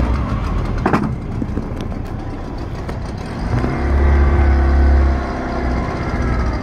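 A small boat's motor running steadily at low speed under way, with a louder low rumble swelling for about a second and a half near the middle. A short falling swish is heard about a second in.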